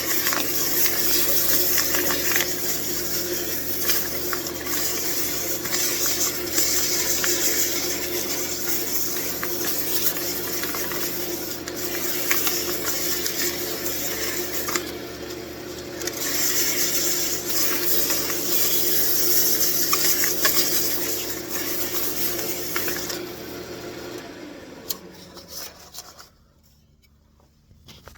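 Wood lathe running with 320-grit sandpaper held against the spinning wooden ornament: a steady motor hum under a loud sanding hiss that swells and eases. Near the end the sanding stops and the lathe is switched off, its hum dying away to near silence.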